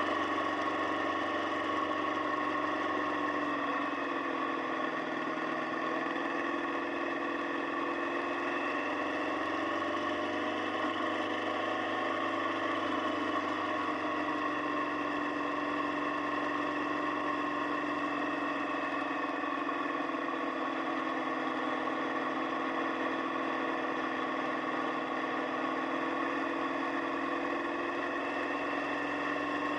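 Motorcycle engine running at a steady speed, its pitch drifting gently up and down.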